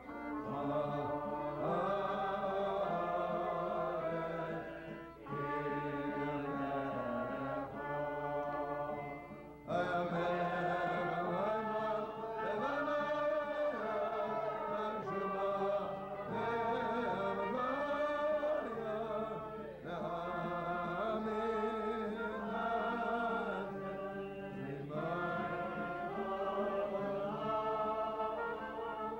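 A man singing a Jewish prayer melody to acoustic guitar, with other voices joining in. The song goes in phrases with short breaks between them.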